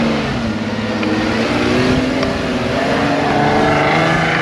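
Four-wheel-drive vehicle's engine revving as it drives up a soft sand dune track, its pitch rising and falling with the throttle and climbing near the end, over the rush of tyres in sand.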